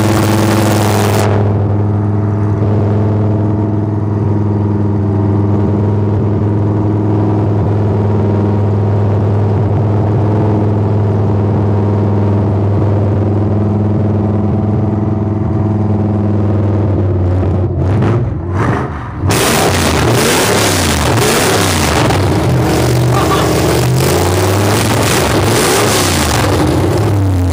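Small-block Chevy 350 V8 in a mini pulling tractor idling steadily while still cold after sitting three months. Past halfway the sound briefly dips, then grows rougher and fuller, its pitch wavering up and down.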